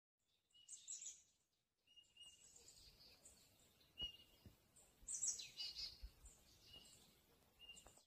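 Faint birdsong: short high whistled notes and quick falling chirps, repeated every second or so.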